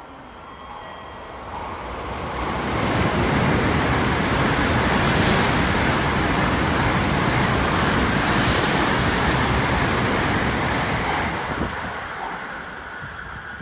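An N700-series Tokaido Shinkansen train passing through a station without stopping, held to a reduced speed of about 200 km/h: a steady rushing of air and wheels that builds as it nears, stays loud for about eight seconds, and fades as it leaves. Two brief sharp hisses about three and a half seconds apart stand out in the middle of the pass.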